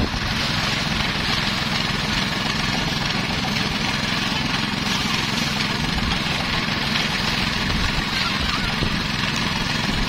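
Portable rice thresher running steadily, driven by a small gasoline engine, as bundles of rice stalks are fed into its spinning drum.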